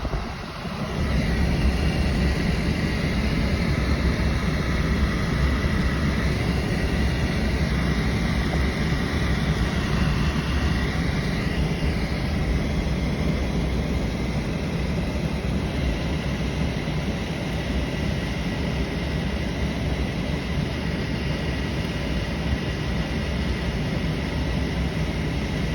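A vehicle under way: an engine running steadily with a constant rumble and rushing wind noise, and a short thump at the start.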